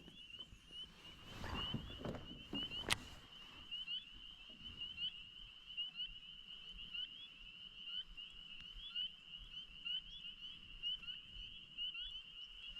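Dense chorus of small frogs at dusk: many short, high, slightly rising peeps at about the same pitch, overlapping without a break. A single sharp click sounds about three seconds in.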